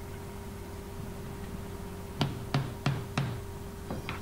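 About five sharp knocks from a hammer tapping dents out of a metal toolbox lid against a wood block, starting about halfway through, the last two close together near the end. A steady low hum runs underneath.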